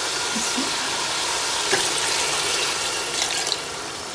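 Water poured from a cup into a stainless steel pot of chicken and masala: a steady splashing pour that eases off near the end. It is the cooking water going in for the pilau rice.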